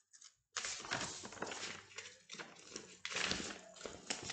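Paper rustling and handling noise as the pages of a picture book are turned and the book is moved about close to the microphone. It starts about half a second in and goes on irregularly.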